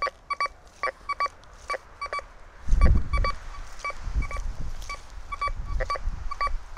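A Golden Mask Coin Killer metal detector with a Spider 9-inch coil gives short beeps, all at one pitch, singly and in quick pairs, as the coil is swept over a foil condom wrapper buried 5 cm deep. About three seconds in there is a brief low rumble.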